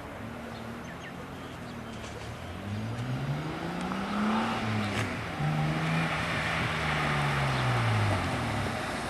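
Holden VR Commodore's 3.8-litre V6 engine idling, then revved twice. The first rev climbs and drops back quickly; the second is held for a couple of seconds before falling back to idle.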